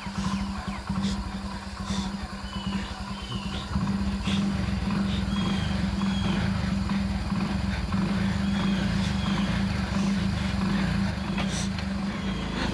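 Motorcycle engine running steadily at idle: a constant hum over an uneven low rumble, louder from about four seconds in. Short high bird chirps come and go over it.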